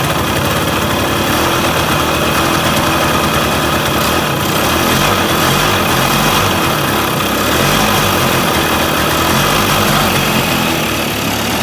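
Yamaha two-stroke single-cylinder engine, a DT175 cylinder on a 1980 YT125 bottom end, running on its first test start, its speed wavering up and down rather than settling into an idle.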